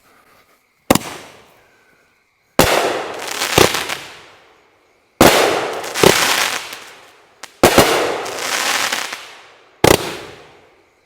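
A 500-gram consumer firework cake firing its shots, a sharp bang every second or two, each trailed by a second or so of fading noise from the break.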